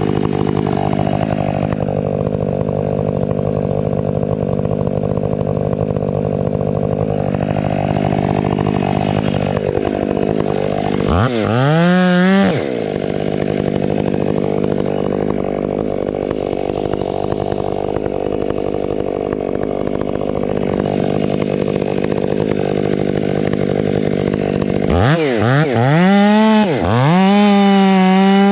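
Ported Stihl 500i chainsaw cutting into Douglas fir, its engine pulling steadily under load. About eleven seconds in it revs up out of the cut with a rising whine for a second or so, then drops back into the wood. Near the end it is blipped a few times and then held at full throttle, running high and steady.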